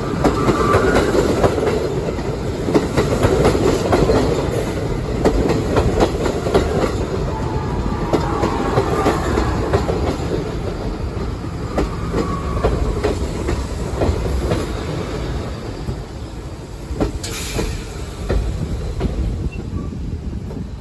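R68 subway cars rolling past at low speed as the train enters the station, wheels clicking over rail joints with faint wheel squeal. The sound eases off over the last few seconds as the train slows.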